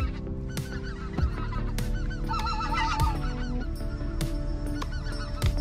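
Geese honking: a steady, overlapping chorus of many short honks.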